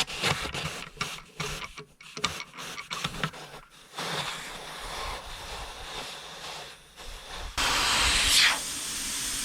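A run of short clicks and knocks, then air hissing steadily out of the Gaz66 tyre's inner tube through the opened central tyre inflation valve port as the tyre deflates. The hiss starts a little under halfway in and gets suddenly louder near the end.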